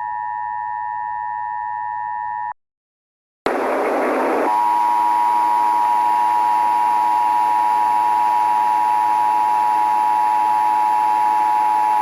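Emergency Alert System two-tone attention signal, a steady dual-pitched tone that cuts off about two and a half seconds in. After a second of silence a burst of radio static starts, and the same two-tone signal comes back over a constant radio hiss, ending near the end.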